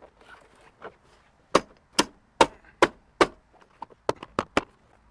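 Plastic interior trim on a Jeep Cherokee XJ being pushed and tapped up into its retaining clips: a run of five sharp knocks about half a second apart, then a quicker cluster of lighter clicks as the clips seat.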